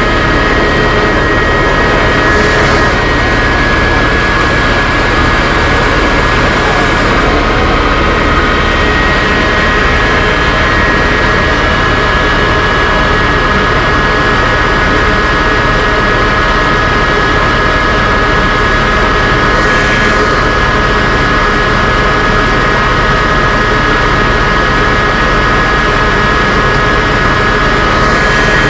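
A heavy engine running steadily at constant speed, with a steady high whine over a dense low rumble.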